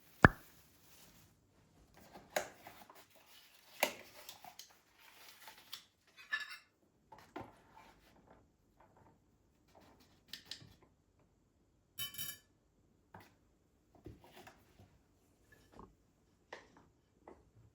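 Kitchen handling sounds: scattered clicks and knocks of dishes and utensils being set down and moved. A sharp knock at the start is the loudest, with a short rattling clatter about twelve seconds in.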